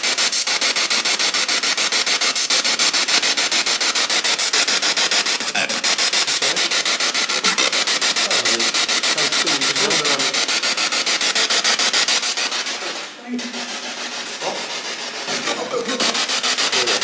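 Radio static rapidly chopped at an even pace, played loud through a JBL portable speaker: a spirit box sweeping through radio stations, with brief snatches of voice-like sound. The static drops in level about thirteen seconds in.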